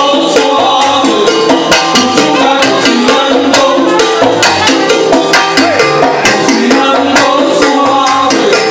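Salsa orchestra playing live: a busy, driving percussion rhythm under bass and pitched instruments.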